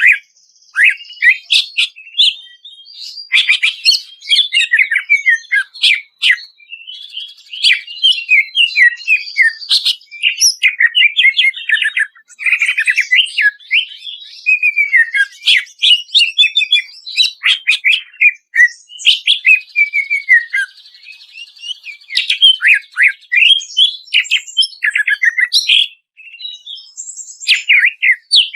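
Green leafbird (cucak ijo) singing a long, varied song of rapid chirps, sweeping whistles and trills, with only brief pauses and a buzzy rattle about two-thirds of the way through.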